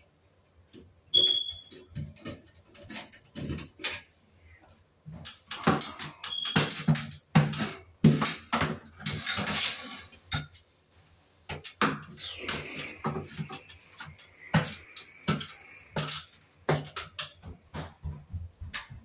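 Irregular clicks, knocks and clatter of hand tools and metal fixture parts being handled, busiest in the middle stretch.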